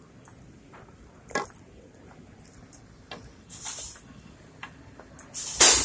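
Handling noise from a phone rubbing against a leather jacket: scattered brushing rustles and small clicks, with a louder scrape near the end.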